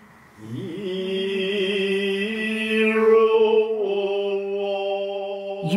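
Noh chanting (utai): a single voice holding one long note, sliding up into it at the start and wavering, then dipping slightly about four seconds in.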